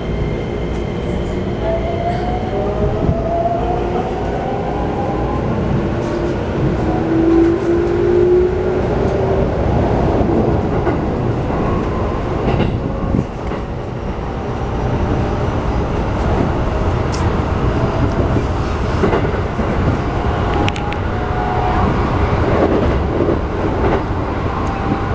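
Keikyu New 1000 series electric train heard from inside the car while accelerating. The Toyo IGBT-VVVF inverter and traction motors whine, rising in pitch over the first several seconds, over a steady rumble of wheels on rail with occasional clacks over rail joints.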